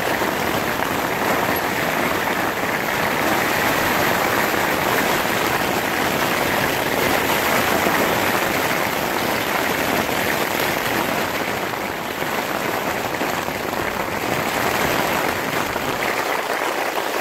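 Heavy rain lashing on a tent's flysheet, heard from inside the tent as a steady, dense hiss of drops on the fabric.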